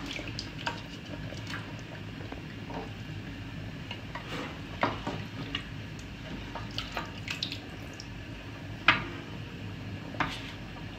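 Wooden spoon stirring a thick cow-leg nihari stew in a large metal pot, with scattered knocks and scrapes of the spoon against the pot; the loudest knock comes about nine seconds in.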